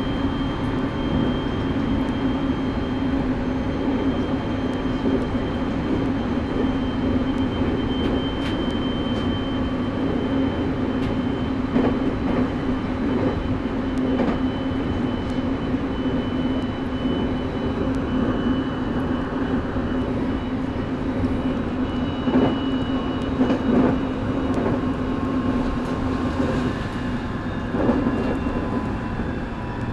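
JR 701 series electric train running, heard from inside the car: a steady rumble of wheels on rail with a few sharp rail-joint clicks. Over the last ten seconds or so a motor whine falls slowly in pitch as the train begins to slow.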